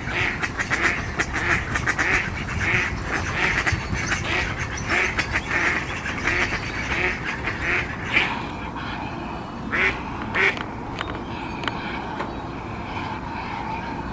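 Mallards quacking: a steady run of quacks about two a second, then after about eight seconds a few louder single quacks and softer calling.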